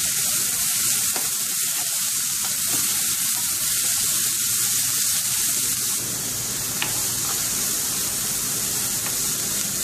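Chopped onion, ginger and green chillies sizzling steadily in hot coconut oil in a pan as they are stirred with a spatula to sauté them.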